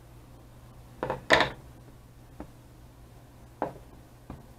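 Handling noises of a vape box mod with a rebuildable tank on it: two short rustling scrapes about a second in, then a light click, a brief scrape and another click.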